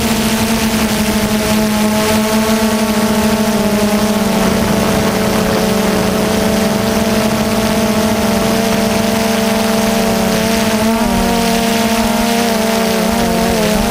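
DJI quadcopter's electric motors and propellers whining steadily, heard loud and close from the camera on board. Near the end the pitch wavers and dips as the rotor speeds change.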